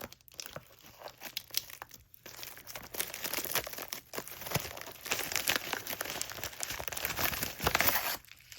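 Packing material crinkling and rustling as a shipping package is dug through by hand, with small crackles and tearing, busier from about three seconds in.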